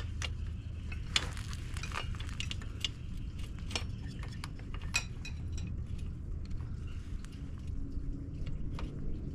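Light metallic clinks and rattles of a motorcycle drive chain's links as the new chain is handled and fed onto the sprocket: irregular sharp clicks, over a steady low hum.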